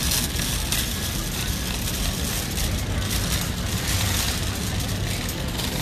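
Metal shopping cart rolling across a concrete store floor: a steady low rumble with a couple of short rattles near the start, over the background hubbub of a busy warehouse store.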